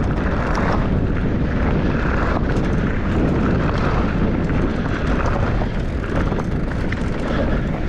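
Wind rushing over the action camera's microphone and tyres rolling over a dirt trail as a mountain bike runs fast downhill, with scattered clicks and rattles from the bike.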